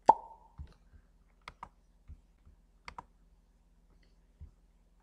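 Clicking at a computer: a sharp click just after the start that rings briefly, then lighter clicks in quick pairs about every second and a half, with a few soft low thumps between them.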